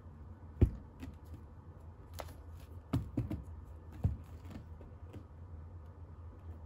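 A kitten swatting and pawing at a felt cat cave: a handful of dull thumps and light taps of paws on felt and the wooden floor, the loudest about half a second in, more around three and four seconds in.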